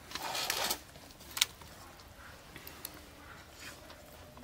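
Fingers mixing rice and curry on a steel plate, with a short rustling scrape in the first second and one sharp click about a second and a half in. Faint small ticks of eating follow.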